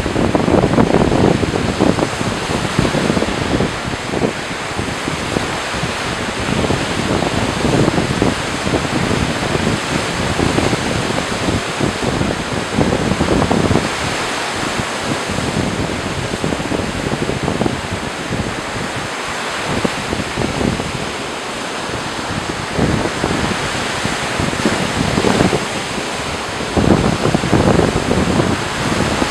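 Ocean surf breaking and washing up the beach around the pier pilings: a continuous rush that swells louder as bigger waves come in, near the start, around the middle and again near the end. Wind buffets the microphone.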